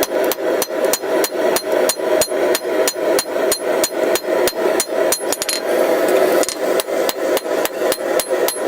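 Blacksmith's hammer striking hot steel on an anvil, about three even blows a second with a bright ring, drawing out the tip of a forged bar. The blows pause for about a second just past the middle, then resume, over a steady background roar.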